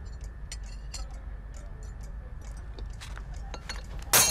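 Faint clinks of cutlery on plates, then about four seconds in a drinking glass thrown down onto a hard tiled floor crashes loudly, with a short ringing tail.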